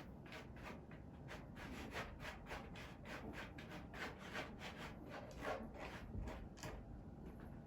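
A cat's claws raking a corrugated cardboard scratcher in quick, even rasping strokes, about three to four a second.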